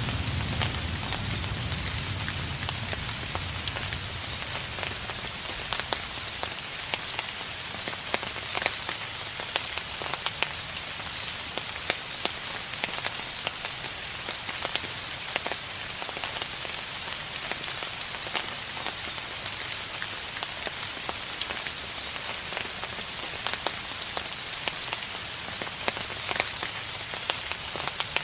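Steady rain falling on a surface, an even hiss with many single drops ticking through it. In the first couple of seconds the tail of a distant thunder rumble fades out.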